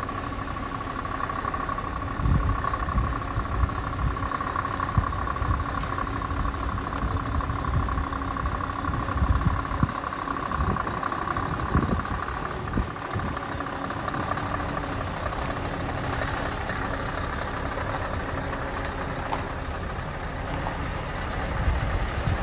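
Scania R580 truck's V8 diesel engine running at low revs as the truck creeps forward, with a steady whine that fades out after the middle. Wind buffets the microphone in irregular gusts.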